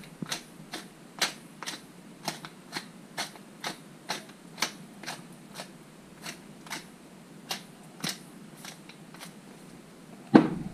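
Wooden pepper mill being twisted, grinding peppercorns in a steady run of short crunching clicks, about two a second. Near the end, a louder knock as the mill is set down on the glass cooktop.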